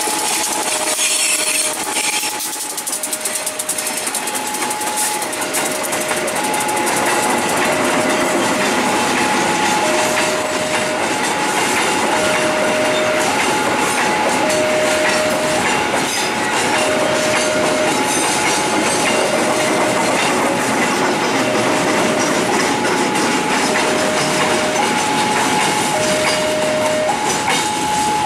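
Level-crossing warning alarm sounding a two-tone ding-dong, high and low tones alternating about once a second. Beneath it, a train of empty flat wagons rolls past with the clickety-clack of wheels on the rails.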